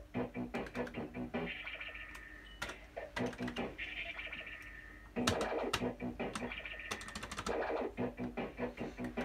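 QPS Yabba Dabba Dough fruit machine playing its electronic sound effects: a short jingle of rapid beeps and held tones looping over and over, with sharp clicks scattered through it. The display shows it adding cash and moving along its feature.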